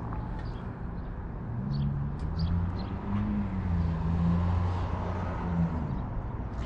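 A vehicle engine running with a steady low hum for a few seconds, its pitch rising slightly as it comes in and dropping as it fades, over street noise. A few short high chirps sound about two seconds in.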